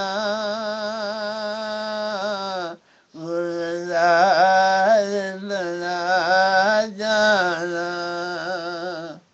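Solo voice singing an Urdu devotional song in long held notes with a wavering vibrato and ornaments, with a short breath about three seconds in.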